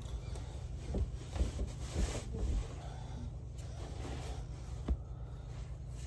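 Bed sheets and a blanket rustling, with soft bumps, as a person shifts about under the covers, over a steady low hum. There is a single short knock about five seconds in.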